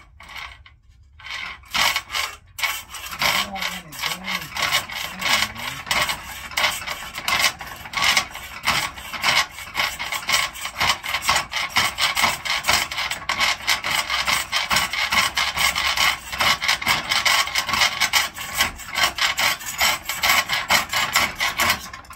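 A hand tool scraping back and forth on the rusted metal of an old Delta Rockwell bandsaw, in quick, steady, rasping strokes that start about a second and a half in.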